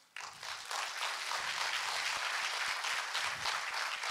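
An audience breaks into applause, the clapping starting abruptly and keeping up steadily.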